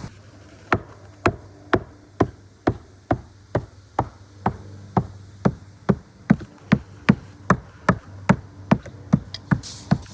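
Roofing work: hammer blows on the roof in a steady rhythm, about two strikes a second, coming faster over the last few seconds.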